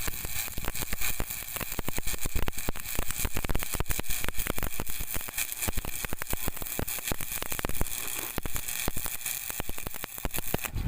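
Electric arc welding: a steady, dense crackle of the arc as a bead is laid, stopping abruptly at the very end.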